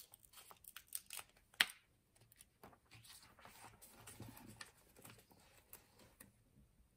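A paper sticker tab peeled off its backing sheet with small crackles and clicks, the sharpest snap about a second and a half in. Then the soft rustle of planner pages being turned and smoothed.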